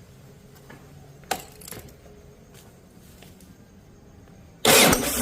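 A few faint clicks and small rattles, then about four and a half seconds in the Yamaha Ténéré 600's single-cylinder engine is started with a sudden loud burst. This is the warm-engine start that the owner says brings on a noise at the exhaust outlet.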